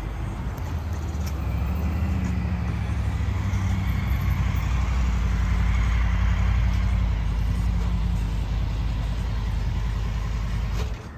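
The SSR XF250X's air-cooled single-cylinder four-stroke engine idling steadily, then stopping abruptly near the end.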